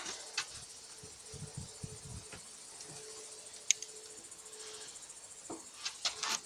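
Faint steady trilling of crickets, with a few light clicks and knocks, one sharp click about midway and several near the end.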